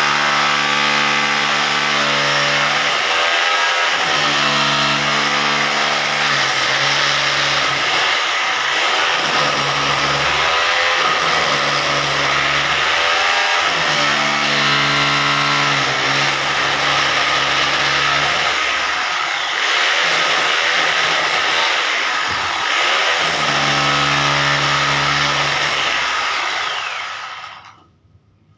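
Electric hammer drill running hard while cutting, its motor pitch dipping and recovering every few seconds as it bites and frees up. It stops about a second before the end.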